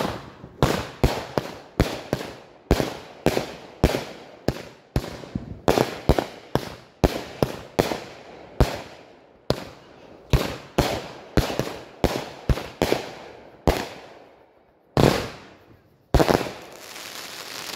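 Fireworks going off in a rapid string of sharp bangs, each echoing away, with a brief lull, then a louder bang near the end that gives way to dense crackling.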